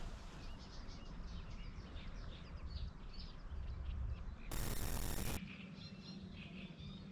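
Small birds chirping and singing, many short quick chirps overlapping. About four and a half seconds in, a burst of hiss lasting about a second covers them.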